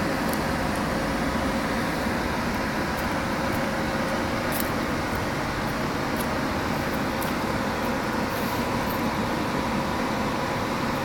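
ChS2T electric locomotive standing with its equipment running: a steady mechanical hum with a faint, even whine, and a few light ticks.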